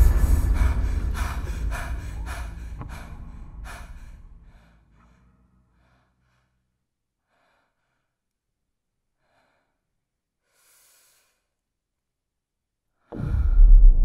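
Film sound design: a rhythmic pulsing sound, about two pulses a second, fades away over the first few seconds into near silence with a faint hiss, then a sudden loud low rumble with a steady drone starts about a second before the end.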